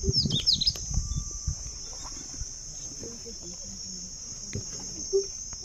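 Insects droning steadily at a high pitch in the rocky scrub, with a quick run of falling chirps in the first second.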